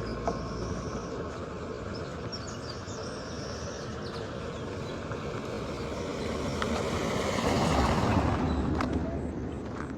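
Street traffic noise, with a motor vehicle passing close by and loudest about eight seconds in.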